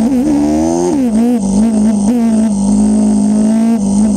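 Motorcycle engine heard from on board, under way: its pitch climbs through the first second as it accelerates, drops sharply, wobbles up and down with the throttle, then holds steady.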